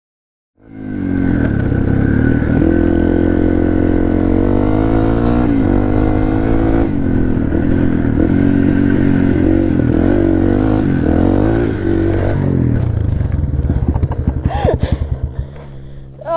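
Dirt bike engine running under throttle while being ridden, its pitch rising and falling as the rider revs and shifts. It cuts in about half a second in and eases off into a choppier, quieter sound near the end.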